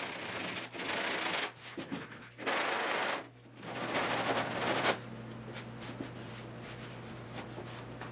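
Hand sanding block with coarse 40-grit paper rasping back and forth over cured fiberglass on a car body panel, in runs of strokes that stop about five seconds in. A low steady hum sits underneath.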